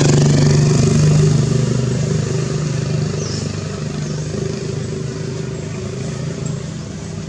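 A motor vehicle engine running steadily, a low hum that slowly grows quieter.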